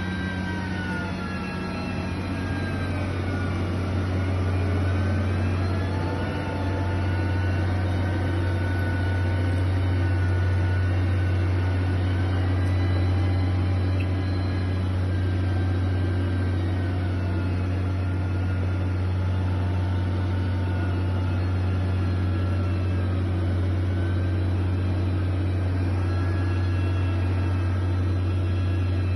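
Heavy machinery engine running steadily: a constant low drone with fainter higher whining tones that slowly waver in pitch.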